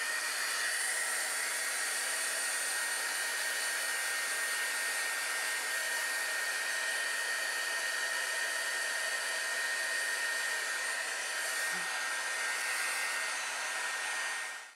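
Craft heat gun blowing steadily while it dries a watercolour-wet paper doily: an even rush of air with a steady high whine, switched off at the very end.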